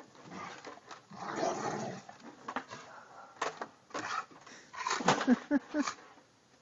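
A dog's stick knocking against a wooden picket fence as the dog tries to carry it crosswise through a narrow gap: a rustle about a second in, then several sharp knocks and clatters.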